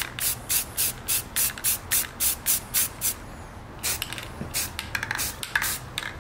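Aerosol can of filler primer spraying in short, quick bursts, about four a second, with a brief pause about three seconds in before the bursts resume. This is a first light coat of primer being dusted onto the puttied spots of an alloy wheel rim.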